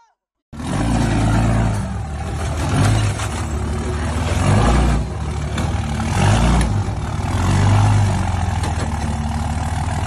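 A large vehicle engine, likely a pickup truck's, running loudly, its revs swelling and dropping every couple of seconds.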